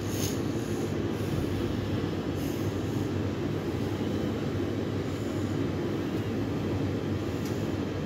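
Tumble dryer running in its drying phase, with a steady low rumble and hum from the turning drum.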